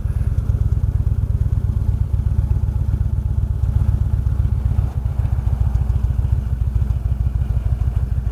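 Touring motorcycle engine running steadily at low road speed, heard from the rider's seat, as the bike slows in traffic behind a truck.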